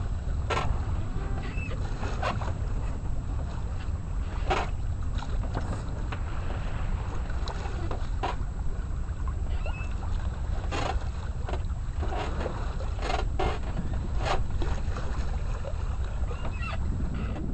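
Wind rumbling on the microphone aboard a sailboat under way, with water splashing against the hull in scattered short slaps.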